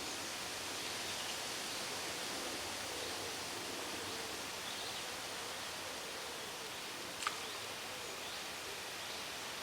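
Steady rushing outdoor background noise with a faint rustle, and a single sharp click about seven seconds in.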